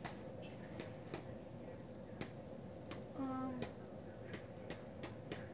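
Fingers tapping on a rubber kickball: a string of light, irregularly spaced clicks, with a short pitched squeak about three seconds in.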